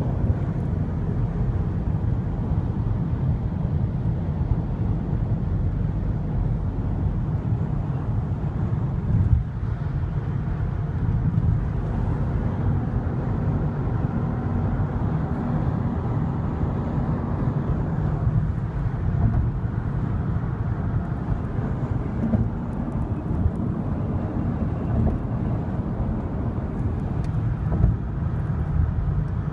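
Steady low rumble of a vehicle in motion, with brief bumps about nine seconds in and near the end.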